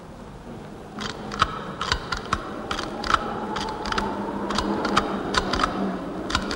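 A run of dry, irregular clicks and taps, several a second, starting about a second in, over a faint steady low hum.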